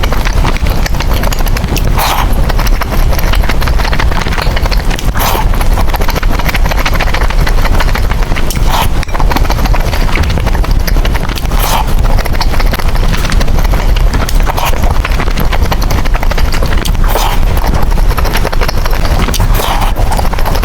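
Close-miked eating of spicy noodles: continuous wet chewing and mouth clicks, with a short louder slurp or bite every few seconds.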